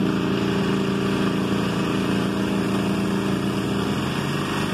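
Garden tractor's small engine running steadily just after being started.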